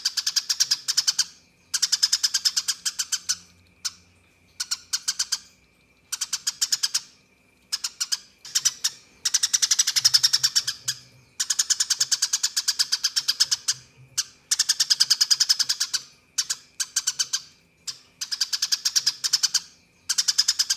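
Eurasian tree sparrow giving its agitated fighting call: very rapid, chattering chirps in rolling bursts of one to two seconds, broken by short pauses.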